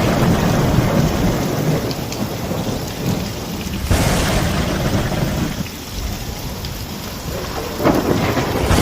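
Thunderstorm: steady rain with rumbling thunder, a sharp thunderclap about four seconds in that rolls away, and another building near the end.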